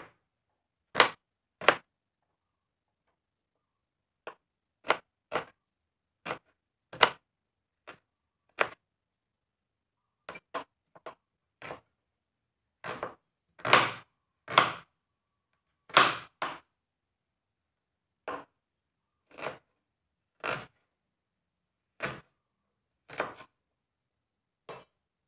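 Kitchen knife chopping small red onions on a plastic cutting board: single sharp knocks of the blade on the board, irregular and about a second apart, with short pauses between runs of cuts.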